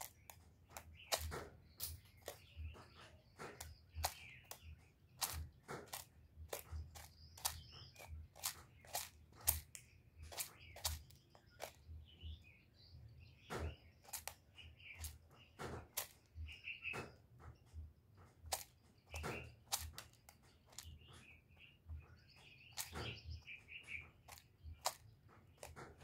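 Irregular sharp clicks and rustles, a few a second, from a caged spotted dove preening close to the microphone, its beak working through its feathers; no cooing. Faint chirping of small birds in the background.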